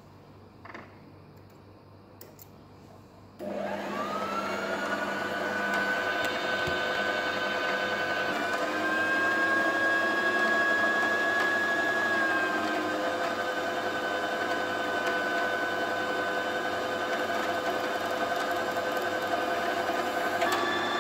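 Brother sewing machine's electric motor starting up about three and a half seconds in and running steadily with a whine as it winds thread onto the bobbin, driven by the foot pedal. The pitch rises a little partway through and then eases back down.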